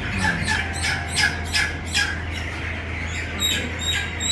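A flock of young chickens peeping and squawking, with rapid overlapping calls, most of them in the first two seconds. A steady low hum runs underneath.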